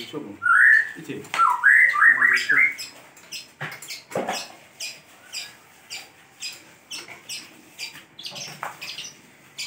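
Bird calls: several short calls that bend up and down in pitch over the first three seconds, then short sharp chirps repeated about twice a second.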